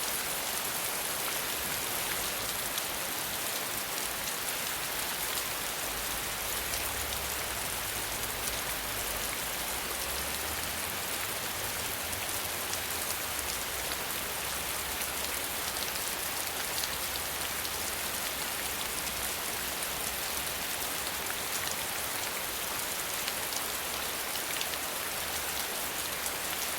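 Steady rain falling, an even hiss with fine scattered ticks of drops hitting surfaces.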